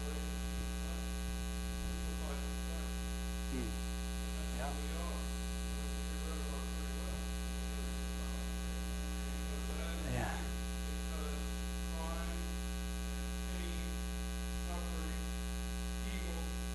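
Steady electrical mains hum on the recording, a low buzz with many evenly spaced overtones. Faint, distant voices come through it now and then.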